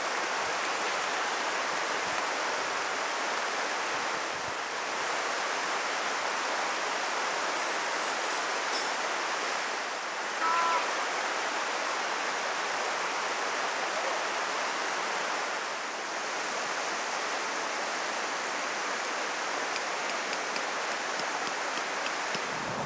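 Steady rush of a flowing stream, with a brief faint chirp about halfway through.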